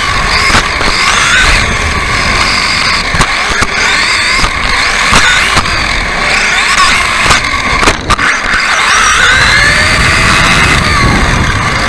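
Radio-controlled off-road buggy racing, heard from on board: its motor whines, rising and falling in pitch as it speeds up and slows through the corners, over a constant rush of noise, with sharp knocks as the chassis and wheels hit the track.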